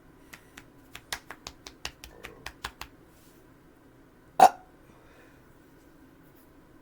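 About a dozen quick light clicks over the first three seconds, then one short, sharp sound from the throat, a small clipped burp or catch, as a person tries to bring up a burp stuck in the throat after chugging carbonated seltzer.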